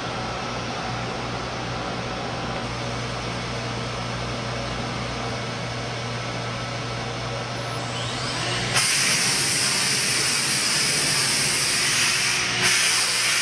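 Thermwood five-axis CNC router machinery running: a steady hum with hiss, which jumps abruptly to a louder, higher hiss about two-thirds of the way in.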